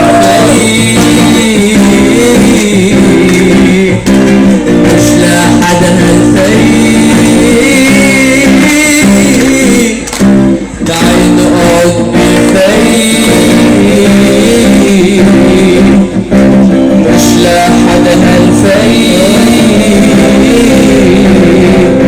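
Music with a plucked-string accompaniment and a singing voice, dropping out briefly a little before the middle.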